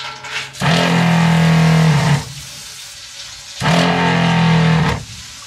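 Boat's freshwater pressure pump running in two bursts of about a second and a half, cutting out and starting again. With the accumulator tank bypassed, the pump cycles on and off as the fully open faucet draws water.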